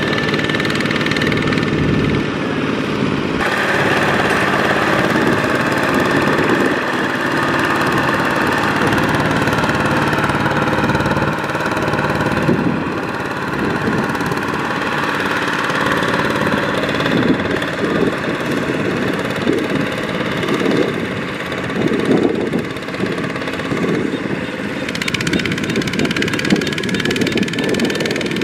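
Single-cylinder diesel engine of a Kubota two-wheel walking tractor, chugging steadily under load as it pulls a loaded trailer through mud. The engine note shifts a few times, about three seconds in, near the middle and near the end.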